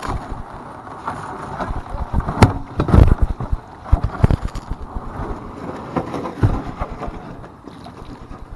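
Paddling an Ascend 12T sit-on-top kayak: water splashing and sloshing against the hull, with several sharp knocks over the middle stretch.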